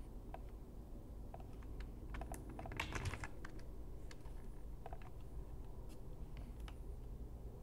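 Typing on a computer keyboard: faint scattered key clicks, with a quick run of keystrokes about two to three seconds in, over a low steady hum.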